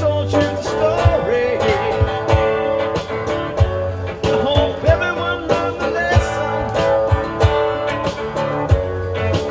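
Instrumental passage of a song: guitar playing over a low thump that keeps a steady beat.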